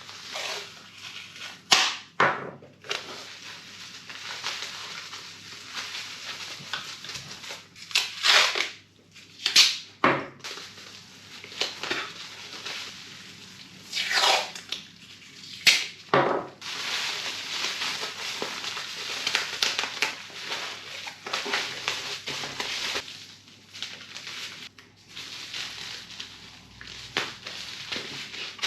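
Packaging being handled while a tyre repair kit is wrapped: steady crinkling and rustling, broken by about half a dozen short, sharp rips and crackles.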